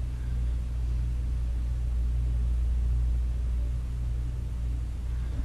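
Steady low-pitched mechanical hum, unchanging throughout.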